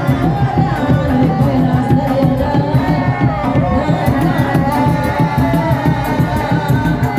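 Kuda lumping gamelan music: kendang hand drums beating a steady, fast rhythm under a melody that slides in pitch.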